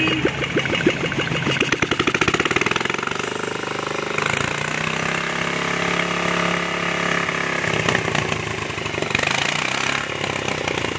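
Vintage single-cylinder motorcycle engine running on fuel fed from a plastic bottle. Its beats quicken over the first few seconds, it revs up and back down smoothly in the middle, then it settles back near the end.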